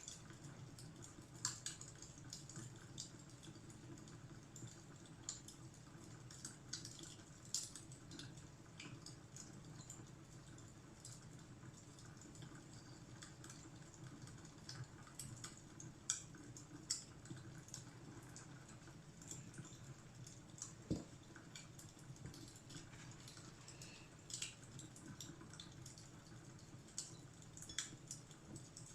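Fireplace crackling: scattered, irregular sharp pops and snaps over a faint steady low background.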